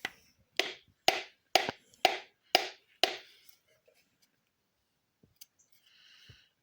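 A hammer tapping on top of a piston to drive it through a ring compressor into the cylinder bore of an LS engine block: seven sharp taps, about two a second, then it stops. The piston has not yet gone down into the bore.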